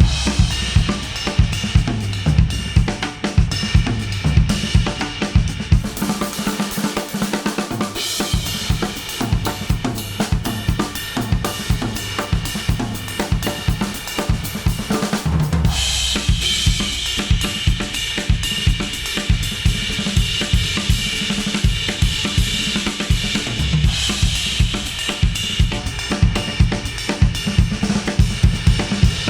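Instrumental pop track with a full drum kit beat (kick, snare, hi-hat and cymbals), played through USB-C wired earphones and recorded by an artificial-ear simulator. The arrangement changes about eight seconds in and again about halfway through.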